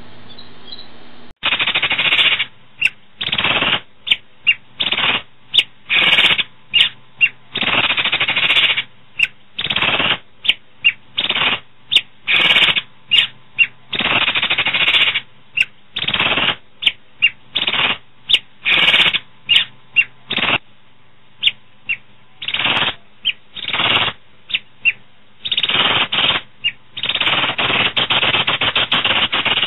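Asian pied starling (jalak suren) giving loud, harsh, rasping chatter in a string of bursts, some short and some drawn out over a second or more. It starts about a second and a half in.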